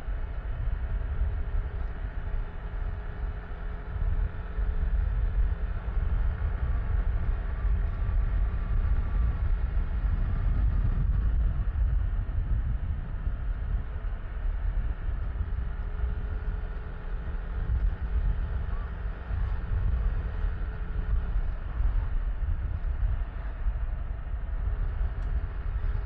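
Yamaha Tricity 155 scooter under way: its single-cylinder engine runs steadily beneath a heavy rumble of wind on the microphone.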